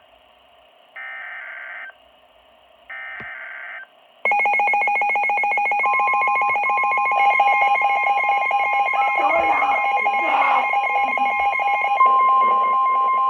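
NOAA Weather Radio alert signal: two short, screechy digital data bursts (the SAME header), then from about four seconds in a loud continuous warning alarm tone. Near the middle a person briefly screams in the background.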